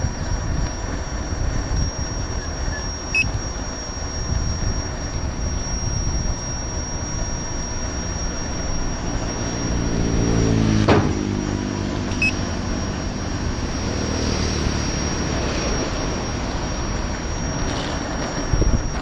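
Wind buffeting on the microphone and the rumble of the Gotway MCM4 electric unicycle's tyre rolling over a paved path, with a thin steady high whine throughout. Around the middle, an engine drone swells and fades, with a sharp click at its peak.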